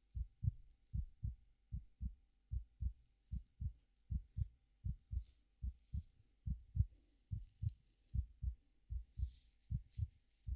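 A steady heartbeat of paired lub-dub thumps repeats evenly throughout. Over it, soft irregular rustling swishes of hair being played with come and go, fullest near the end.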